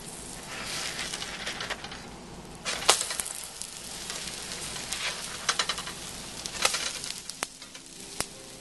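Pancakes sizzling in a hot nonstick frying pan while a plastic spatula slides under them and flips them over. Several sharp taps and scrapes of the spatula on the pan cut through the steady sizzle.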